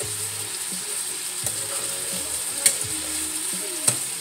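Chicken pieces frying in hot oil in a stainless steel skillet, a steady sizzle, while they are turned over with metal tongs. Two sharp clicks of the tongs against the pan stand out in the second half, a little over a second apart.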